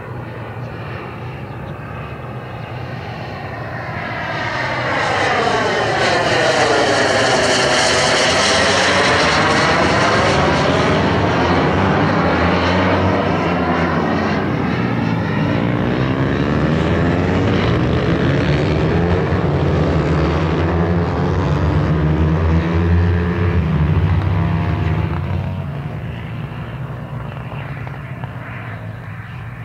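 Turbine-powered RC model jet flying by: the jet's rushing whine swells about four seconds in as it comes close, stays loud for about twenty seconds with a sweeping, phasing sound, and fades near the end.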